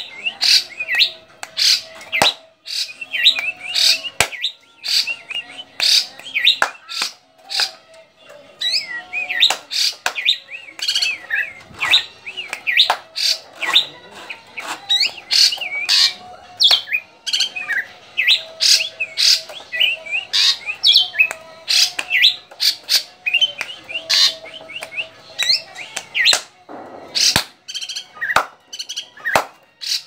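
Caged Javan drongo calling almost without pause: a fast, dense string of sharp chirps, squawks and short whistled notes.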